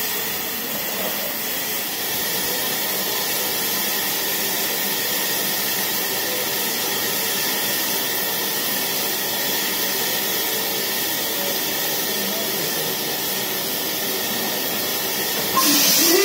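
LMS Jubilee class 4-6-0 steam locomotive 45690 'Leander' standing in the platform, hissing steam steadily. A louder, sharper burst of steam comes near the end.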